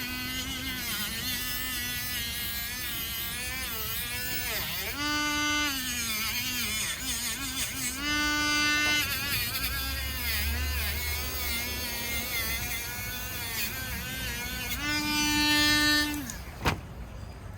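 A small high-speed electric tool motor whining steadily, its pitch repeatedly dipping and wavering, then holding level again. It stops about sixteen seconds in, and a single click follows.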